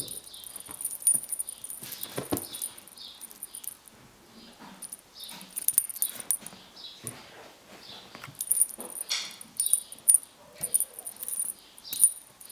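Kitten mewing in many short, high-pitched calls, with scratchy rustling from a feather wand toy.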